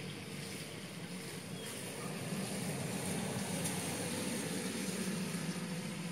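Steady engine hum over a broad rushing noise, growing louder about two seconds in.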